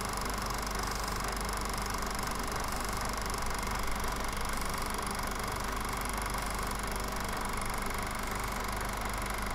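Steady mechanical whirr and hum of a film projector running, with a constant low mains hum and hiss underneath.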